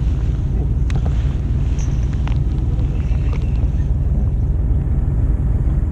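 Fishing boat's engine running steadily, a low even rumble, with a few faint clicks about a second and two seconds in.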